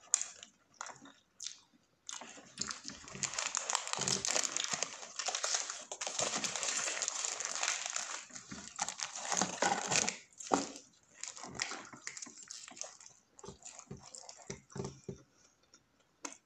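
Paper wrapper crinkling steadily for about eight seconds, starting about two seconds in, as a wrapped footlong wrap is handled and torn apart. Close-miked chewing and mouth clicks come before and after it.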